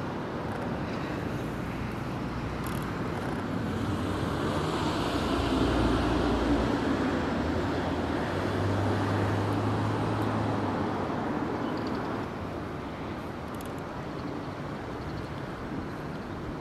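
Outdoor background rumble of a distant engine passing. It swells to its loudest about six seconds in and fades after about eleven seconds, with a low steady hum near the middle.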